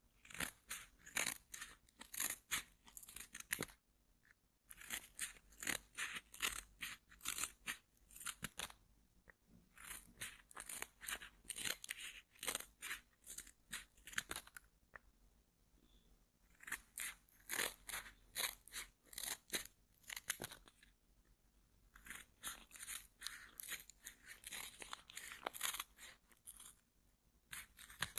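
Close-miked headphone packaging handled and scratched: crisp crackling and crinkling in five bursts of a few seconds each, with short pauses between them.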